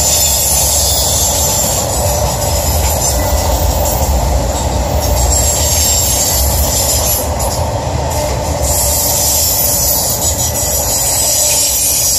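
Freight cars of an intermodal train, flatcars carrying semi-trailers, rolling past: a steady, loud rumble of steel wheels on rail with a high hiss.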